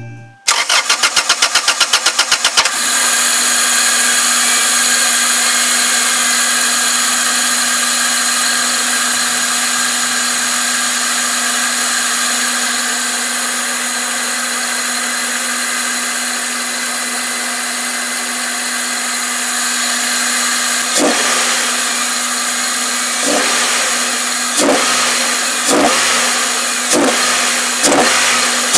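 Toyota Celica engine cranking for about two seconds, catching, and settling into a steady idle. Near the end it is blipped in six short, sharp surges about a second apart. The engine has a hesitation that the owner is still trying to track down.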